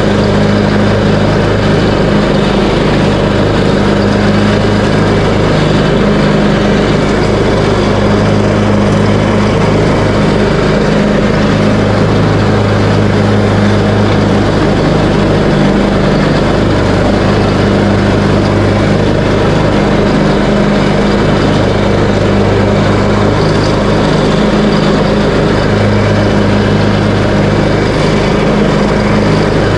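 Craftsman T130 riding lawn mower engine running steadily while mowing dry grass, its hum swelling and easing every few seconds.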